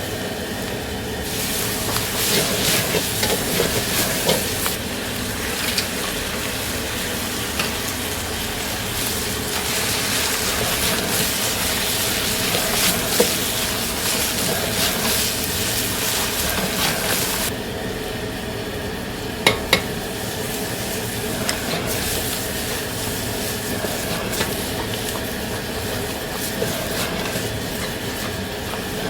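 Food sizzling as it is stir-fried in a wok, with the hiss easing off past the middle and a couple of sharp metal knocks shortly after. A steady hum of the kitchen's burner or extractor runs underneath.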